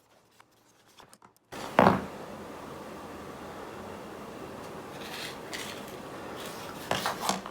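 Handling sounds from a Porter-Cable random orbit sander being taken apart: light clicks and scraping on its housing, with a sharp knock about two seconds in and a cluster of clicks near the end. A steady background hiss starts abruptly about a second and a half in.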